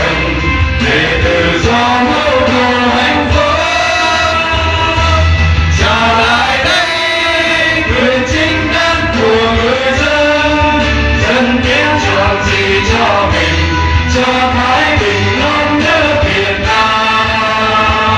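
Choir of young voices singing a Vietnamese hymn-like song in unison, with a musical accompaniment under it, amplified through a microphone.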